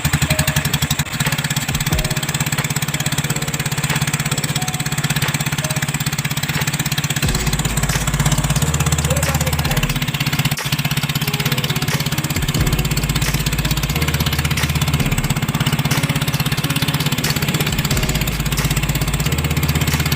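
Small engine running steadily at an even speed, with a fast, regular firing beat.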